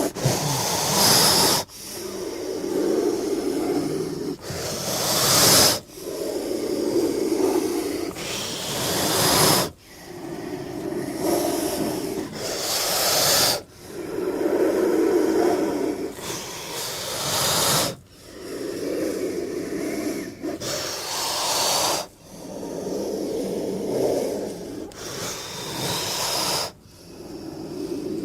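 King cobra hissing over and over, about one hiss every four seconds. Each hiss starts low and growl-like, ends in a sharper, higher hiss, and is followed by a short break.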